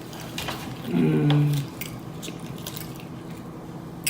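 Close-up chewing and wet lip-smacking of a person eating fried fish, with scattered sharp mouth clicks and a short hummed vocal sound about a second in.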